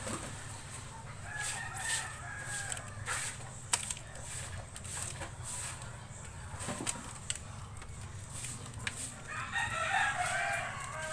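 A rooster crows, loudest near the end, with a fainter call earlier. Scattered sharp clicks run through it from plastic bottles being cut.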